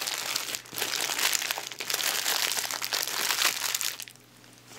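Paper burger wrapper crinkling and rustling close to the microphone as the burger inside is handled. The rustling stops about four seconds in.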